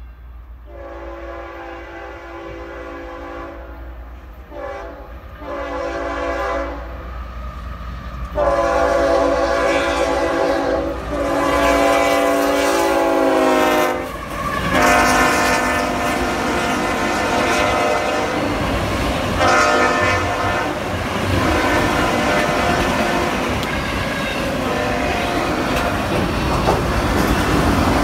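GE ES44AH diesel locomotive sounding its horn for a grade crossing in several blasts, the last one long, its pitch dropping as the locomotive passes close by about halfway through. After that, the train rolls by with the locomotives running and the wheels of empty autorack cars clattering over the rails.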